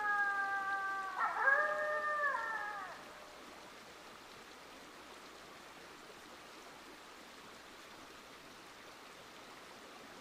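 Several wolves howling together, overlapping voices sliding down in pitch, a fresh set of howls coming in about a second in and the chorus dying away about three seconds in. After that only a faint steady hiss remains.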